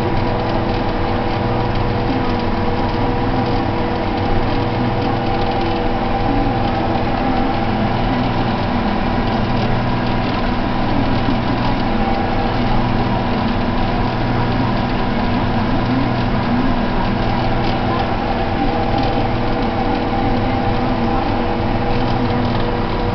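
Deutz-Allis tractor's diesel engine running steadily under plowing load, pulling an IH 735 plow, heard from inside the cab. The engine note holds a constant pitch with a slow, regular swell about once a second.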